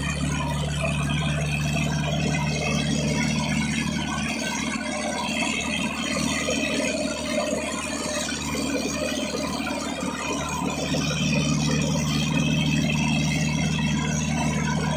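Sonalika DI-750 III tractor's diesel engine running steadily under load while pulling a double harrow through loose soil, with rattling over it. Its low, even hum weakens somewhat between about four and eleven seconds in, then comes back strongly.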